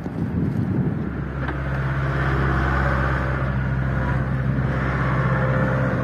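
A steady engine hum that sets in about a second in and holds level, over a noisy wind-like haze.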